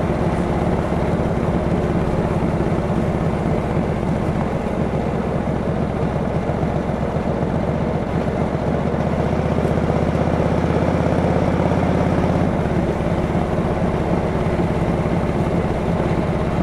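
1943 Harley-Davidson WLC's 45-cubic-inch flathead V-twin engine running under way on the road. The note holds steadier from about nine seconds in, then changes about twelve and a half seconds in.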